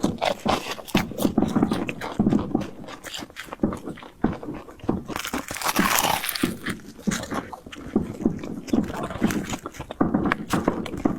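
Close-miked chewing and biting of fried bread: a steady run of crisp crunches and wet mouth clicks, with a louder bite about five seconds in.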